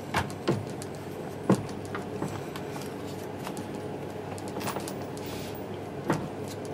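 Hands working at the plastic outer tub and shock absorber fixing pegs of an LG WM14225FD washing machine, making a few sharp plastic knocks and clicks. Two come in the first half second, a louder one about a second and a half in, a few lighter ones after, and another sharp one near the end.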